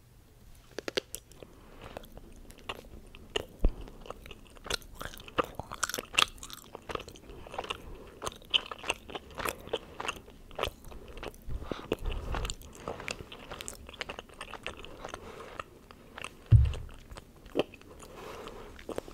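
Close-miked chewing and biting of chocolate: irregular crunches, snaps and wet mouth clicks. A single loud, low thump near the end.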